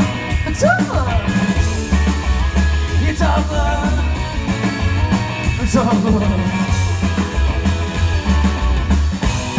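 Live rockabilly trio playing an instrumental stretch: upright bass and drums keep a steady beat under an electric guitar lead whose notes bend in pitch about one, three and six seconds in.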